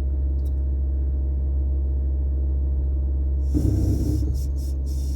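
A car's engine and road noise as a steady low drone inside the cabin while driving through town. From about three and a half seconds in, an uneven hiss joins it, breaking on and off.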